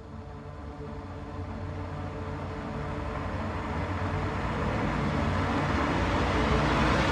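A rumbling, rushing sound that swells steadily louder, with a rising whine coming in near the end.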